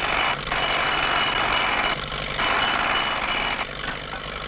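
A railway track maintenance machine working the ties, a harsh mechanical clatter that comes in blocks of about a second and a half with short breaks between them.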